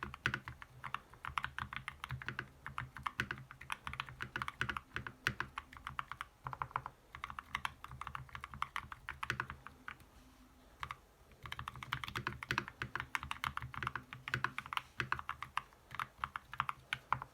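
Typing on an FL-Esports MK870 mechanical keyboard with Kailh Speed Copper tactile switches and ASUS ROG PBT keycaps: a fast, uneven run of key clacks, with a pause of about a second and a half about ten seconds in.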